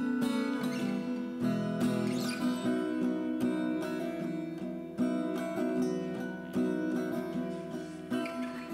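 Background music: a gentle acoustic guitar piece with plucked notes.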